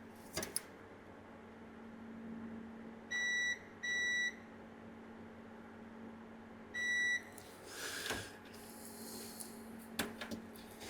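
A multimeter's continuity buzzer beeps three times, each a steady high beep of about half a second: twice in quick succession, then once more a few seconds later. Each beep signals a closed path as the probes touch the transformer pins, which read as all shorted together. Light clicks and rustling come from the probes and handling.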